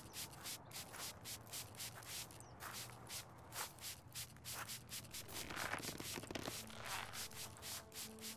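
Hand trigger spray bottle misting plants: quick short hisses of spray, about three or four a second.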